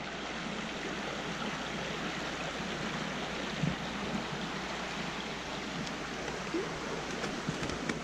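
Creek water flowing steadily.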